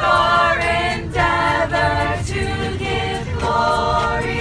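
Choir singing a cappella: several voices holding chords together, changing chord every half second or so.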